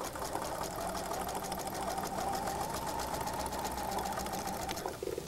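Husqvarna electric sewing machine running steadily, stitching a seam through pieced cotton quilt strips; it stops shortly before the end.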